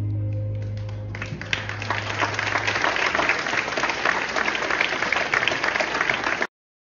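Music ending on a held low note that fades away while an audience breaks into applause about a second in; the clapping builds and keeps going until it cuts off abruptly near the end.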